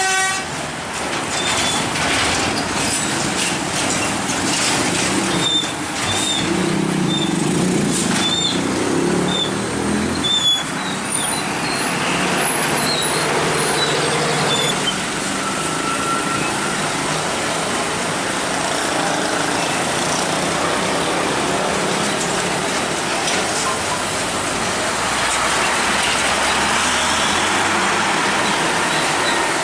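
Steady heavy road traffic, with trucks and other vehicles passing and engine and tyre noise throughout. A louder engine goes by about six to ten seconds in.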